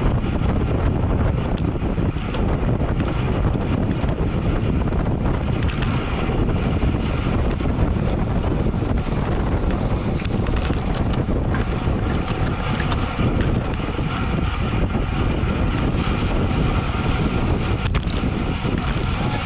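Steady wind noise buffeting the microphone of a camera on a road bike ridden at race speed, a dense low rumble.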